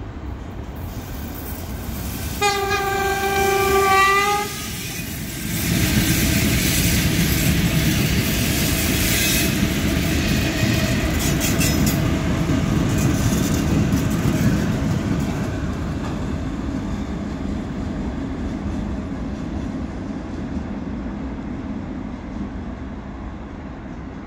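A 2ES6 electric locomotive gives one steady horn blast of about two seconds. About a second later it passes close by with a string of locomotives in tow: a loud rumble of wheels with clicking over the rail joints, fading away over the last several seconds.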